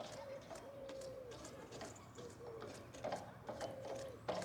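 A pigeon cooing again and again, short low hooting calls following one another, with a few sharp clicks in the second half.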